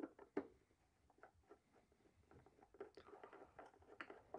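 Faint, scattered clicks and light scrapes of a No. 2 Phillips screwdriver turning out the small screw of a thickness planer's metal material removal gauge plate. There is one sharper tick about half a second in, then a cluster of small clicks from about three seconds in.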